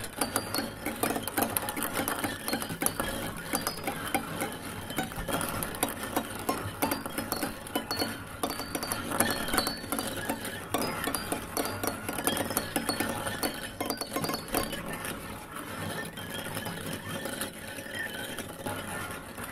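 Dense, rapid clicking and clattering, like a mechanism or small hard objects, over a faint steady low hum.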